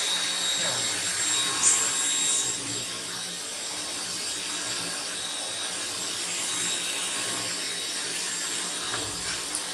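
OSMON OS 1400BL bagless vacuum cleaner running, a steady rushing noise with a high whine, with rubbing sounds as it is moved about. The motor is switched off at the very end, its whine starting to fall.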